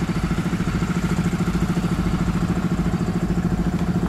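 Steady engine-like mechanical drone, pulsing evenly about a dozen times a second, like a small engine idling.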